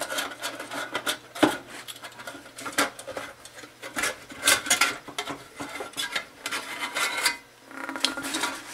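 Sheet-metal lid of a power supply enclosure being lifted off and handled: irregular clanks, clicks and scrapes of metal against metal.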